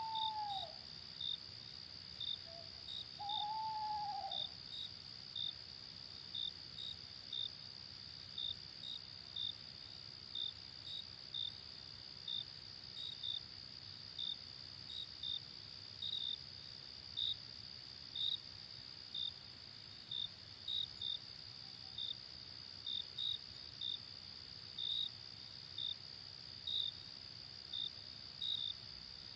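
Night insects: crickets chirping about twice a second over a continuous high insect trill, with an owl hooting twice in the first few seconds, each hoot falling in pitch.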